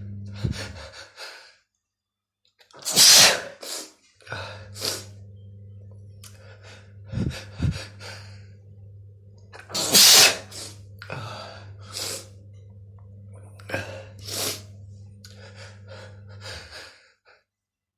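A person in a sneezing fit: a run of sneezes, two of them much louder than the rest, with gasping in-breaths between. A faint low hum sits underneath and drops out twice.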